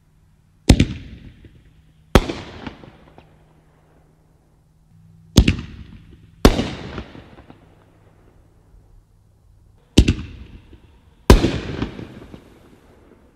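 Three ball shells fired from a mortar tube. Each is launched with a sharp bang and bursts overhead with a second bang about a second later, and each bang trails off.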